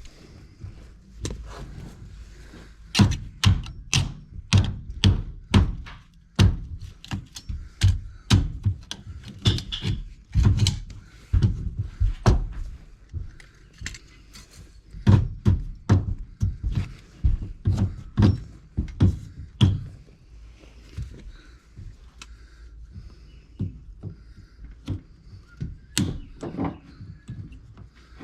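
Irregular knocks and thuds of repair work on wood framing, coming in bursts of several blows about two a second with short pauses between.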